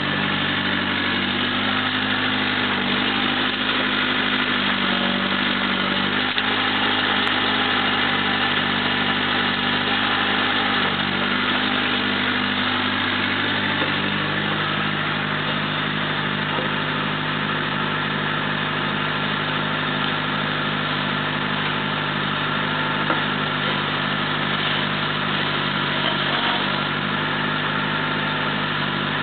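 Mini excavator's diesel engine running steadily under the operator's control, its note shifting a few times as the arm digs and swings a bucket of soil.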